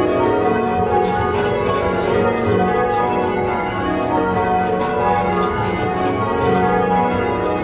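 A ring of eight church bells, cast by Taylor's in 1925 with a 14 cwt tenor in F sharp, being change-rung. The strokes follow one another in a steady, rapid succession, and their ringing tones overlap continuously.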